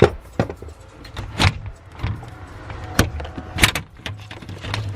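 Plastic trim clips of a car's trunk shelf being popped loose, with the panel knocking as it is worked free: a handful of sharp clicks and knocks at uneven intervals, the loudest about three and a half seconds in, over a low steady hum.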